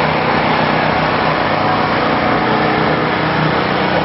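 A portable generator's small engine running steadily, with a constant drone over a hiss.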